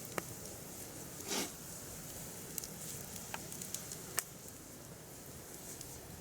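Firewood burning with a steady low hiss and scattered sharp crackles and pops, the sharpest about four seconds in. There is a short burst of hissing about a second in.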